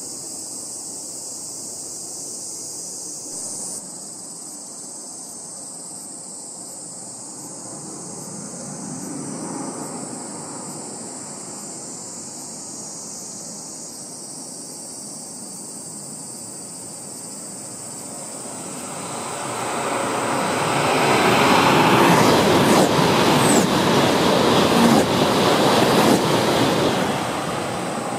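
Shinkansen train approaching and passing at speed. A broad rushing noise builds about two-thirds of the way in, stays loud for several seconds, then fades near the end.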